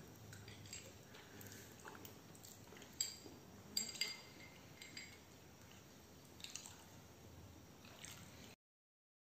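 Faint room tone with a few light clicks and taps, two louder ones about three and four seconds in, then the sound cuts off to silence near the end.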